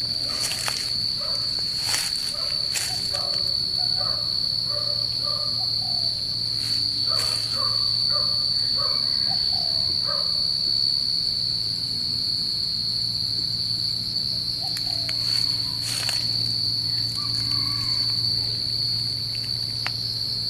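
Crickets trilling steadily at a high pitch, with scattered short chirping calls lower down and a few sharp clicks.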